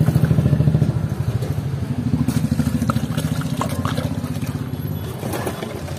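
An engine idling close by with a steady fast pulse, its pitch stepping up about two seconds in and fading near the end. Water is poured from a plastic can into a plastic jar partway through.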